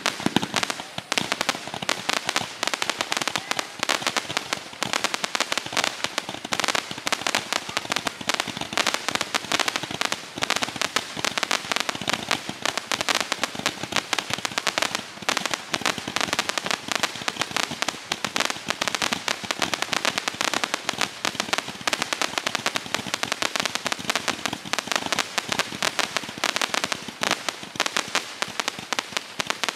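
Multi-shot aerial fireworks cake firing from the ground: a continuous, rapid run of launch pops, bursts and crackling from glittering stars overhead.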